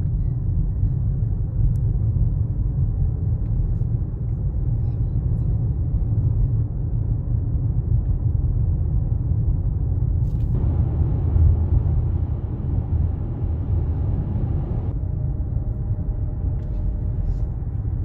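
Steady low rumble of a car driving at road speed, tyre and engine noise heard from inside the cabin. The higher hiss gets brighter for a few seconds past the middle.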